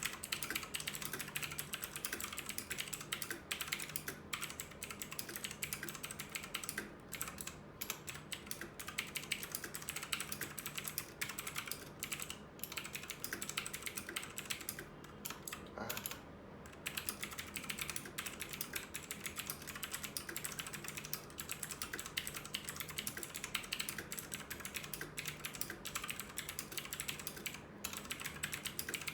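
Fast, continuous typing on a mechanical keyboard with clicky blue Outemu switches, a dense run of keystroke clicks with a few brief pauses.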